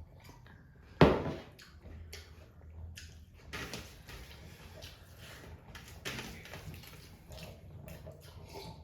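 A single sharp knock about a second in, like something hard set down or struck on a table, followed by faint scattered handling noises.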